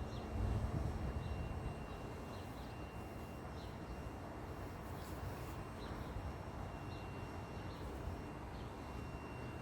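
Outdoor ambience with faint, scattered bird chirps and a low rumble of wind on the microphone during the first two seconds.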